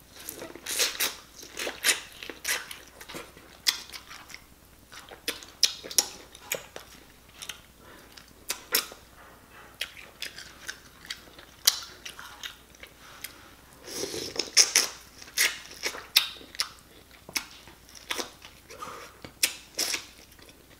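A person biting kernels off a sauce-dipped corn on the cob and chewing: a string of sharp, irregular crunches and clicks, busiest about two-thirds of the way through.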